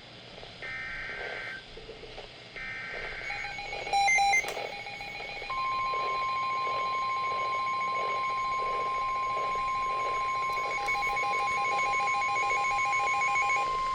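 NOAA Weather Radio Emergency Alert System activation for a special marine warning. Two short buzzing SAME header data bursts come about two seconds apart. Then a beeping alert tone from a weather-alert receiver comes in, and from about five and a half seconds the long, steady 1050 Hz weather radio warning tone sounds.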